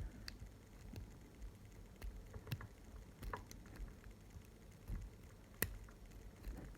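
Small metallic clicks of a lock pick working the pins of a pin-tumbler lock fitted with security pins, held under a tension wrench. The clicks are faint and come at irregular moments, the sharpest about five and a half seconds in; clicks like these are the sign of pins being set.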